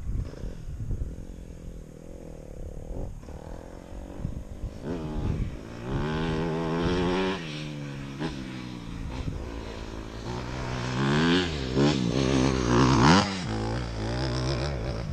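Dirt bike engine running and revved up and down several times, its pitch rising and falling, starting about a third of the way in and loudest near the end. A single knock about three seconds in.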